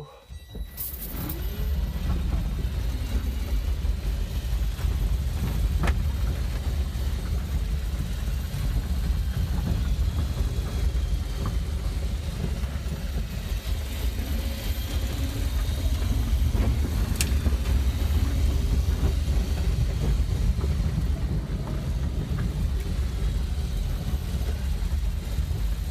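2003 Aixam Mega Truck electric microcar pulling away and driving over a rough lane, heard from inside the cabin: a steady low rumble of tyres and running gear, with a couple of sharp knocks from bumps.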